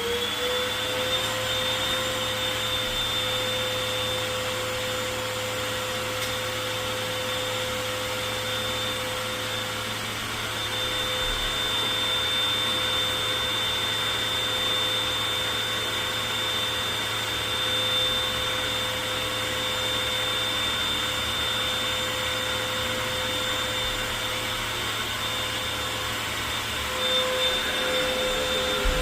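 Hoover WindTunnel T-Series Rewind upright vacuum cleaner running, drawing up shredded paper through its hose. Its motor whine rises to full speed in the first second after switch-on, then holds a steady high whine over rushing air. Near the end the pitch dips briefly.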